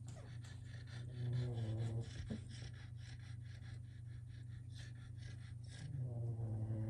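Boston Terrier puppies at play: short pitched vocal noises from a puppy, about a second in and again near the end, over a scatter of light clicks from claws scrabbling on the plastic wobble disk and the deck boards. A steady low hum runs underneath.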